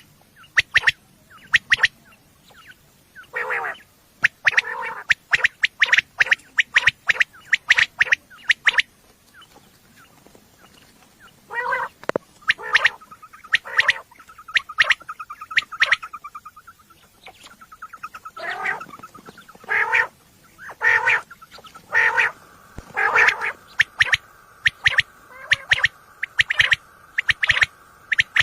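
Quail calling over and over in irregular runs of short, sharp calls, mixed with lower, rougher calls. A steady high tone sounds under the calls for a few seconds near the middle and again through the last third.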